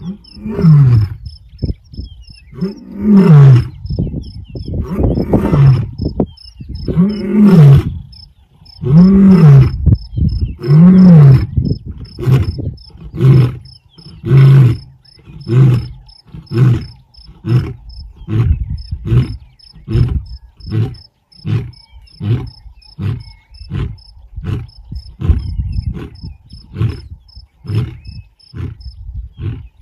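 Male lion roaring: about six long, loud roars, each rising and falling in pitch, followed by a run of short grunts that come faster and grow fainter as the roaring bout trails off.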